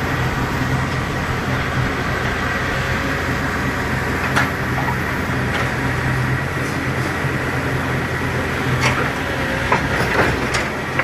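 Heavy diesel machinery running steadily with a low drone, with a few sharp metallic knocks about four seconds in and twice more near the end.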